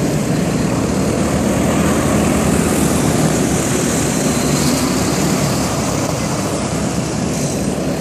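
Small-engine vehicles running, a steady loud engine drone mixed with noise.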